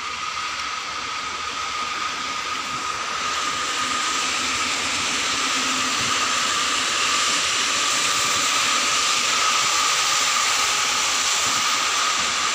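Heavy rain falling, a steady hiss that swells over the first few seconds and then holds, mixed with the tyre swish of traffic passing on the wet toll road. A faint steady high tone runs underneath.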